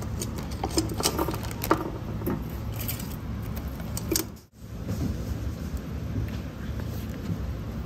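Light clinks and clatter of utensils over a steady low hum, with a brief break about four and a half seconds in.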